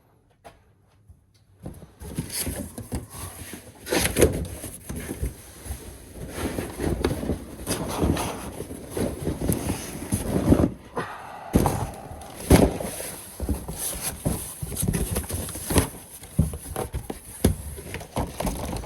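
Boxes and packaging being handled and rummaged through: irregular knocks, thuds and rustling, starting about two seconds in.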